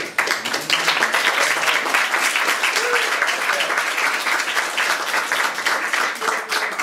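A roomful of people applauding, dense clapping that thins out near the end.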